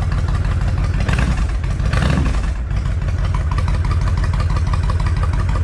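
Honda VTX1300's V-twin engine idling steadily.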